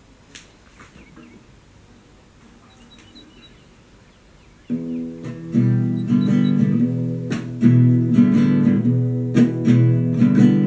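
Acoustic guitar strummed in chords, starting suddenly about halfway in after a quiet stretch.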